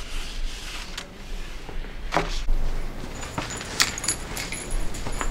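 A few sharp clicks and light metallic jingling, with a thin high ringing in the second half.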